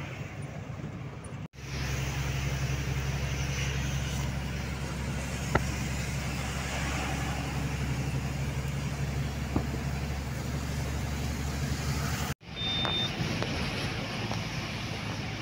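Trailer truck's diesel engine running under way with steady road and wind noise, heard from inside the cab. The sound cuts out for an instant twice, and a short high beep sounds near the end.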